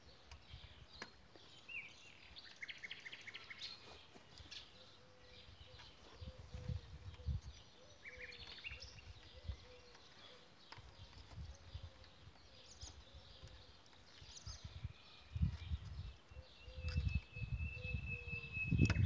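Faint outdoor ambience with small birds chirping now and then, and low rumbling bumps that grow louder in the last few seconds.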